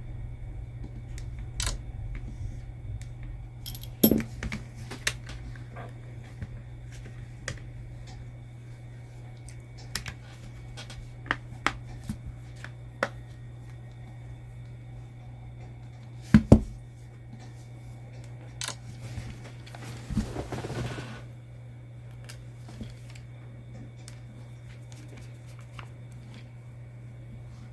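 Scattered light clicks and taps of small tools and phone parts being handled during an iPhone repair, with a brief rustle about twenty seconds in, over a steady low hum.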